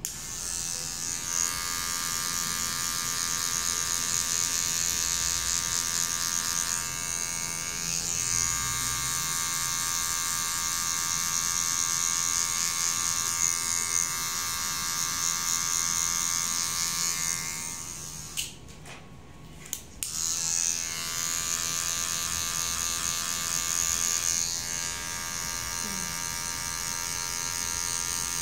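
Electric hair clipper switching on and running with a steady buzz as it trims the short hair at the side of the head; it cuts out for about two seconds past the middle, then runs again.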